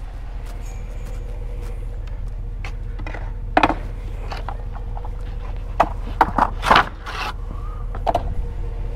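Skateboards knocking and scraping against each other and the trailer as they are loaded onto a metal-mesh utility trailer: a string of sharp clatters, thickest a little past the middle, over a steady low rumble.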